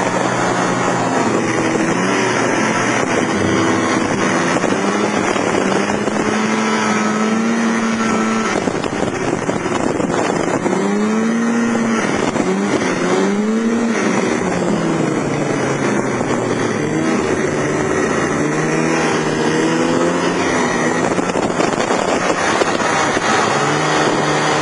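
Snowmobile engine running under way, its pitch rising and falling again and again with the throttle, over a steady rushing noise.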